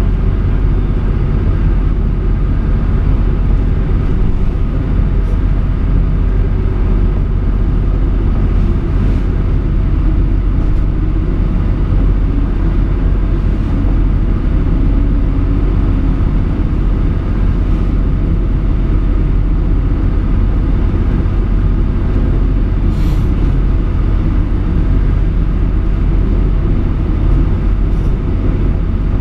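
Motorboat engine running steadily, a deep, even rumble heard inside the wheelhouse as the boat pushes through rough storm waves. Twice, near the end, a short hiss of spray hits the windows.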